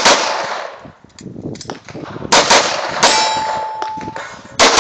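Handgun shots fired during an IDPA course of fire: about six sharp cracks, several in quick pairs, each trailing into a long ringing echo.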